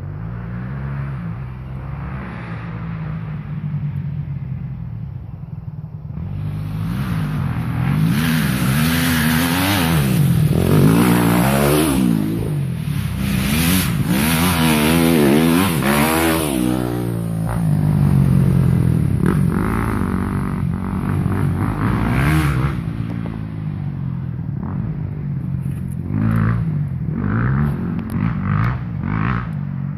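Dirt bike engine revving up and down as it climbs a dirt hill toward the listener. It is loudest about halfway through, then fades, with a few short throttle blips near the end.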